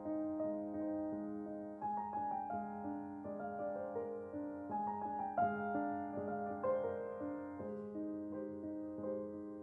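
Background piano music: a slow, gentle melody of struck notes and chords, a new note about every half second.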